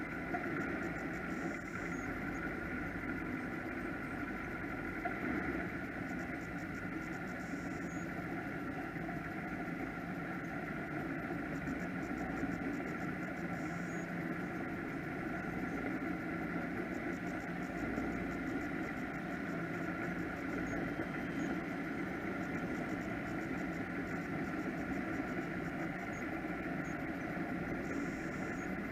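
Offshore powerboat engines idling, a steady unchanging drone with an even hum.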